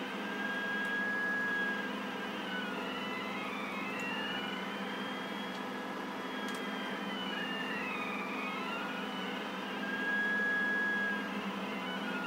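CNC pen plotter's stepper motors whining as the pen draws a circle. Two whining tones slide up and down and cross each other as the axes speed up and slow down along the curve, over a steady hum.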